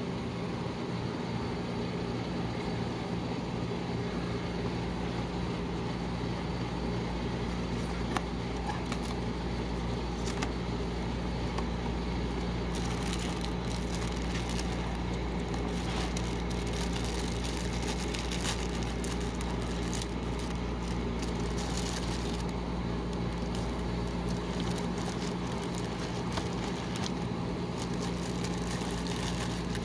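Steady hum of a rolled-ice-cream machine's refrigerated cold plate running. Over it, the crinkling of a cereal box's plastic liner bag being opened and handled, thickest in the second half.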